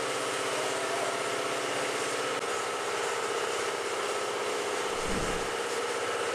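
A steady mechanical hum like a running engine, even in level throughout, with a brief low rumble about five seconds in.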